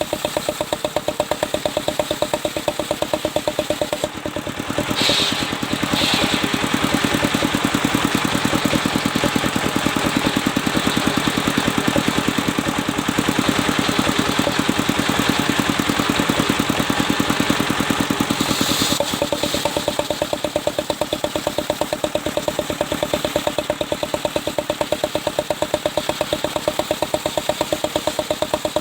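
Engine-driven sawmill circular saw running with a rapid, even engine pulse. About five seconds in the blade cuts into a mahogany log, adding a dense hiss that lasts about fourteen seconds before the cut ends and the engine runs on alone.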